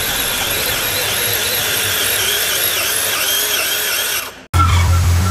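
Scale RC pulling truck's electric motor and drivetrain whining under load as it drags a weight-transfer sled, the high whine wavering up and down in pitch. About four and a half seconds in it cuts off suddenly and music with a heavy bass beat starts.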